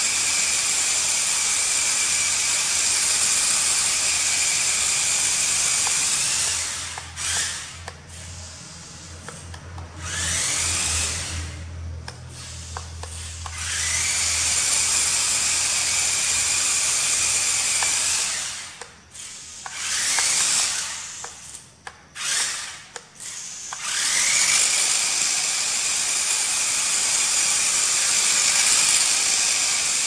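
Electric drive motors and gearbox of a small remote-control rock-crawler toy car whining as it drives. The whine comes in several runs of a few seconds each, with short pauses between them, and each run rises in pitch as it starts before holding steady.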